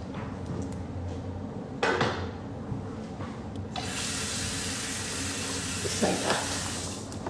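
A steady rushing hiss sets in about four seconds in and lasts about three seconds, over a low steady hum. Short louder sounds come about two seconds and six seconds in.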